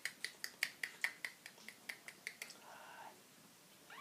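A quick run of about a dozen sharp clicks, some five a second, stopping about two and a half seconds in.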